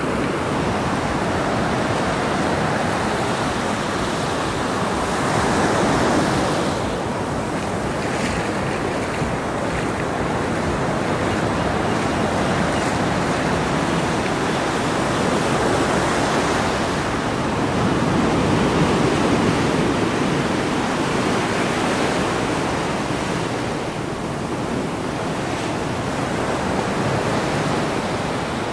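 Ocean surf washing up a sandy beach and around pier pilings: a steady rush of water that swells louder every several seconds as waves come in.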